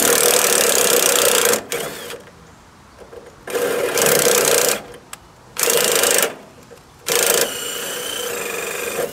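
Cordless drill drilling through a metal grill burner bracket in four bursts, the first the longest, to enlarge a hole. The last run eases into a quieter, steadier spin with a high squeal from the bit on the metal.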